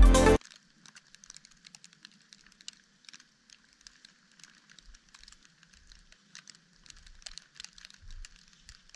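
Music cuts off just after the start. Then faint, irregular crunching and ticking of skis on climbing skins and poles working through deep fresh powder, with a few soft low thumps in the second half as the skier comes close.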